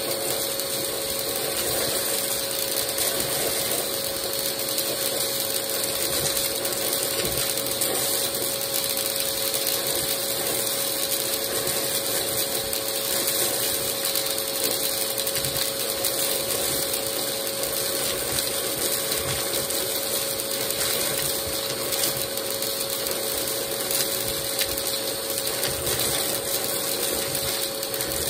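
Vacmaster vacuum cleaner running steadily with its wand buried in a tub of beads, sequins and buttons, the small hard pieces crackling and rattling as they are sucked up through the tube, over a steady motor whine.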